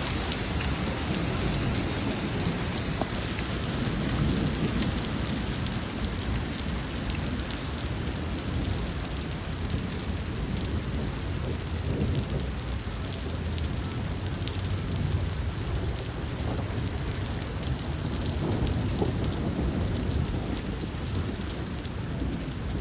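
Pea-sized hail pelting down with rain, a steady, dense patter of many small hits.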